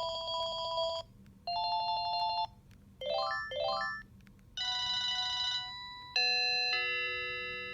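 Panasonic KX-TGA106 cordless phone handset playing its built-in electronic ringtones one after another. Two warbling rings come first, then two quick rising runs of notes, a short steady tone, and a held chime that fades near the end.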